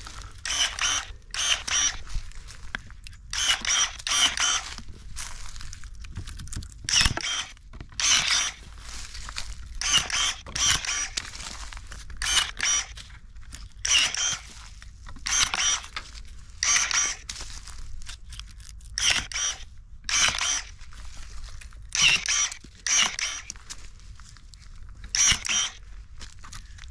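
Battery-powered electric pruning shears cutting grapevine canes: a short, high motor whine with each snip of the blade. The cuts repeat about twenty times, a second or two apart at uneven intervals.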